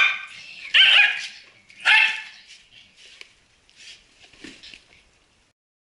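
Dog barking: three loud, sharp barks about a second apart, followed by a few fainter barks that die away about five seconds in.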